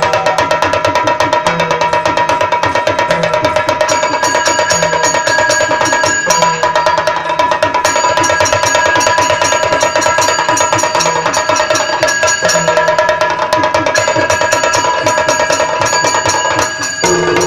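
Yakshagana percussion: chende and maddale drums beaten in rapid, continuous strokes over a steady held drone.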